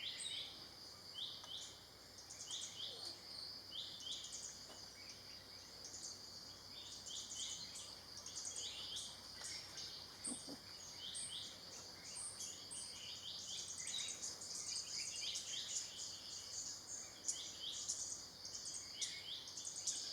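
Small birds chirping in a forest, short high calls repeating several times a second, over a steady high-pitched insect whine.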